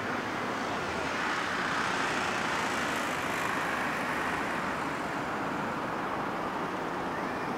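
City street traffic: cars and Hiroshima Electric Railway streetcars running along the avenue, a steady hum that swells a little about two seconds in.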